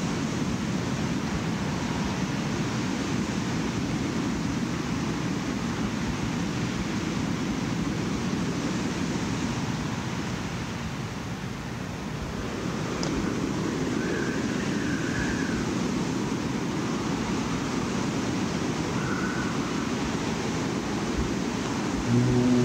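Ambient noise intro of a black metal demo cassette: a dense, even wash of low rumbling noise like wind or surf, with a slight dip about halfway and faint short high tones twice. Near the end it gives way to loud pitched music holding a low note.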